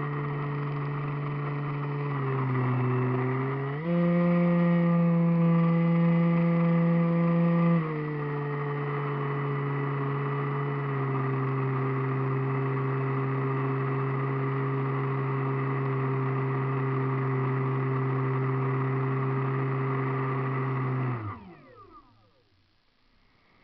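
RC model airplane's motor and propeller running steadily, heard from on board the plane. The pitch dips about two seconds in, then jumps higher and louder at about four seconds as the throttle goes up, and drops back just before eight seconds. Just after twenty seconds the throttle is cut and the motor spins down with a quickly falling pitch to near silence.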